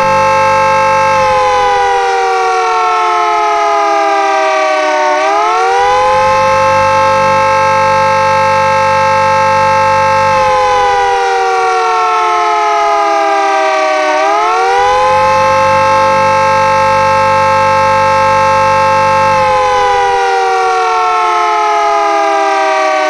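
Industrial warning siren (model PC CBS 1D 200) sounding a loud wail. A steady high tone slowly sinks over several seconds, then climbs quickly back and holds again. The cycle repeats about every nine seconds, twice over, and the tone is sinking again near the end.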